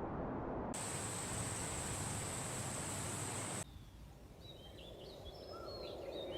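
Steady hiss of background noise that cuts off suddenly about three and a half seconds in, followed by a quieter stretch with faint, short, high chirps of a small animal.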